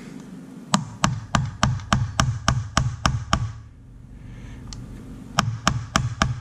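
Quick, sharp taps on a pin of a Cold Steel AD10 folding knife, knocking the pin to loosen the handle scale: about ten taps at roughly three a second, a pause of nearly two seconds, then another run of taps near the end.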